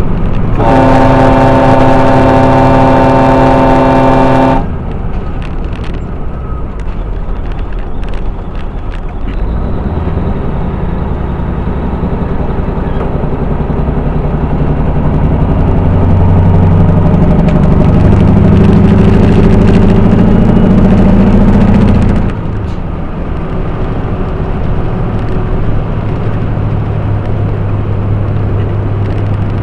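A truck's air horn sounds one long blast of about four seconds, a chord of several steady tones, over the drone of the truck's engine and tyres. The diesel engine note then rises steadily for several seconds as the truck pulls, and drops suddenly to a lower steady drone.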